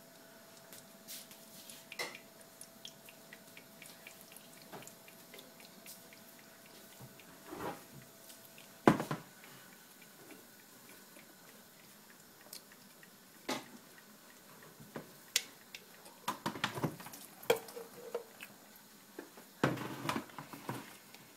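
Scattered clinks and knocks of a stainless-steel mesh strainer handled over a bowl, with dripping as a wet ground paste drains through it. The loudest knock comes about nine seconds in, and a cluster of quick clatters comes near the end.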